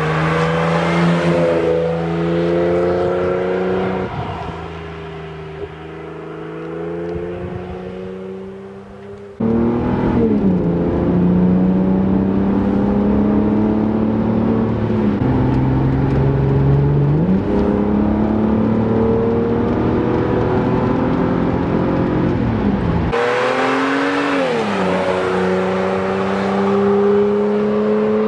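1995 Jaguar XJR's supercharged 4.0-litre straight-six running through a stainless steel sport exhaust, accelerating hard, with the exhaust note rising and dropping as it changes gear. It is first heard driving toward the roadside, then from inside the cabin, then approaching the roadside again.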